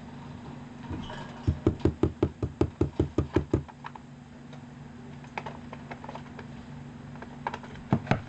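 Rapid run of knocks on a cardboard box, about six a second for two seconds, with a few more knocks near the end. This is the rhythmic tapping exchange between the owner and the cockatiel, which taps along in time.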